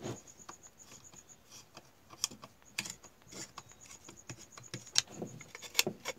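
Screwdriver undoing the gear-housing screws of an angle grinder: scattered small metallic clicks and scrapes, a few of them sharper, with the housing clicking loose near the end.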